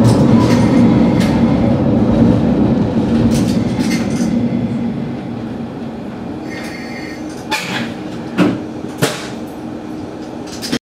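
Diesel railcar on the Sanriku Railway slowing to a stop at a station platform, its engine and wheel rumble fading over the first several seconds. It then stands with a quieter steady engine hum, broken by a few short sharp knocks and hisses near the end.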